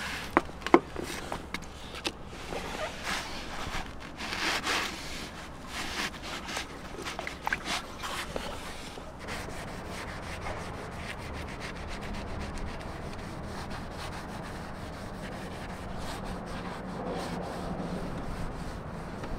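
Hand scraping along a fibreglass-covered wooden boat beam with a paint scraper: irregular rasping strokes and sharp clicks for the first half. After that, steadier scrubbing of the beam with a scouring pad.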